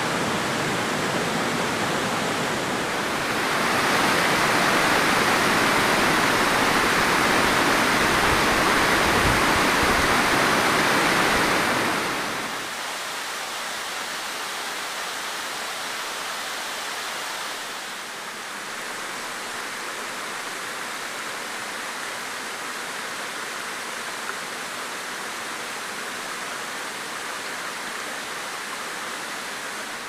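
Waterfalls rushing: an even, steady roar of falling and churning water that swells about four seconds in and drops to a quieter, thinner rush at around twelve seconds.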